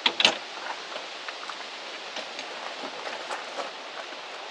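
Two sharp clicks right at the start as the latches of a folding camp-kitchen case snap open. Then a steady soft patter of light rain, with scattered small ticks.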